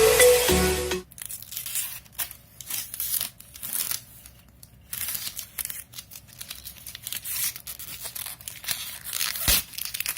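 A song ends about a second in. After it come irregular crinkling, rustling and tearing sounds, like plastic and cardboard packaging being handled, with brief pauses between them.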